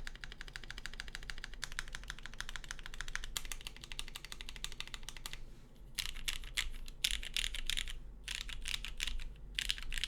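Typing on a custom aluminium-plate mechanical keyboard with lubed vintage Cherry MX Black linear switches and CRP R3 keycaps, a subtle clack. A fast steady run of keystrokes breaks off about five and a half seconds in, then resumes in short bursts with brief pauses.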